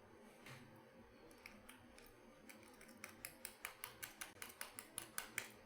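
A metal lock pick clicking rapidly against the pins inside a lock cylinder: a quick run of small, sharp metallic clicks, about eight a second, starting about three seconds in and growing louder toward the end.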